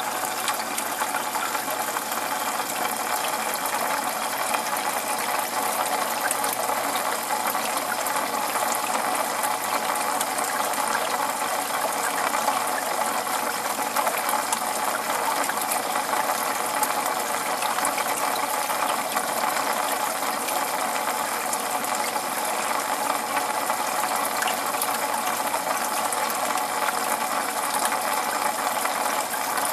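Aquarium water bubbling and trickling steadily, a dense fine crackle with a faint steady hum underneath: the tank's running water circulation.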